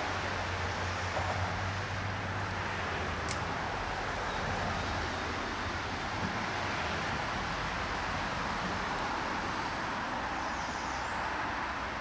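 Steady rush of a creek running high, an even wash of flowing water.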